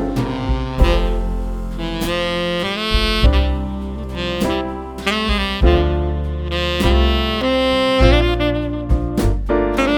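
Jazz background music with saxophone over bass and drums.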